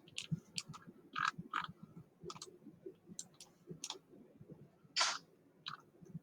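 Computer mouse clicking, about a dozen irregular clicks with the loudest about five seconds in.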